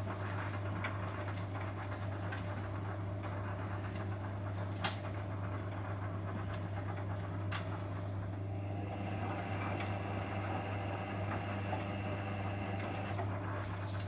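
Beko Eco Care WMA 1510 W washing machine in its 60°C eco wash, the drum turning a load of tea towels in sudsy water, with a steady motor hum and a few sharp clicks. A faint higher whine comes in about halfway through and stops shortly before the end.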